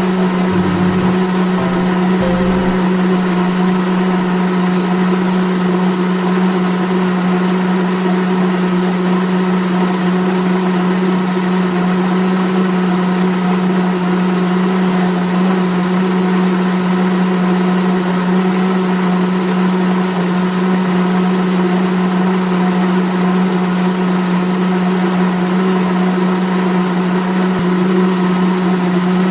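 Small electric motor of a homemade miniature hopper-fed machine running with a steady hum at one constant pitch.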